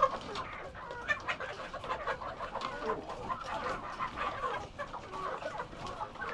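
A flock of laying hens clucking, many short calls overlapping into a continuous chatter, as the hens wait for feed.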